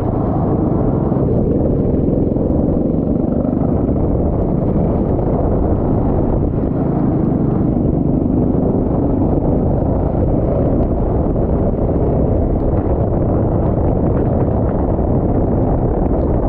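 Kart engine running steadily as a low rumble, recorded onboard, with a faint engine note that rises and falls slightly and wind buffeting the microphone.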